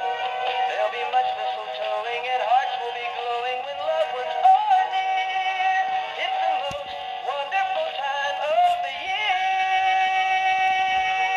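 Gemmy animated candy reindeer toy playing its song through its small built-in speaker: a singing voice over music, with almost no bass. The toy is working again after repair.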